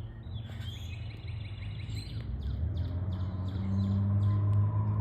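Birds chirping outdoors: a trilled call in the first half, then a quick run of short repeated chirps. Under them runs a low steady hum that swells louder in the second half.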